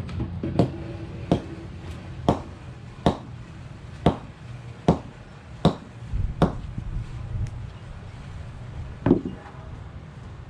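Repeated hammer blows breaking up a hot tub: about ten sharp strikes, a little under one a second, then a pause and one last strike about nine seconds in.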